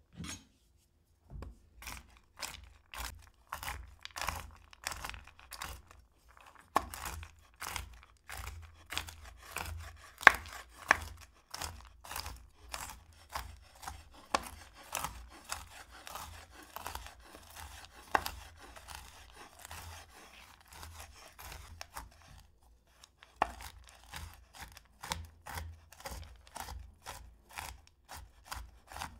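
Kitchen knife chopping vegetables on a cutting board: a steady run of sharp cuts, about two to three a second, each with a dull knock of the board. There is a short pause near the end, then the chopping resumes.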